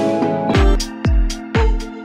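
Background music: sustained instrumental tones joined about half a second in by a steady electronic beat, a deep kick drum about twice a second.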